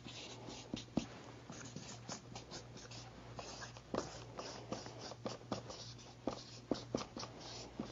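Felt-tip marker squeaking and scratching on a flip chart as large letters are written: a quick, irregular run of short strokes.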